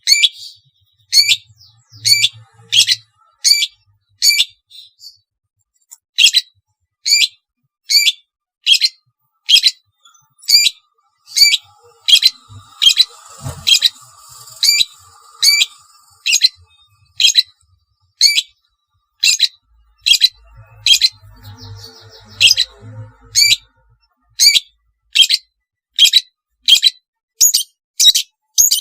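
Long-tailed shrike (cendet) giving a long series of short, sharp, harsh calls, roughly one to two a second, broken by a couple of brief pauses.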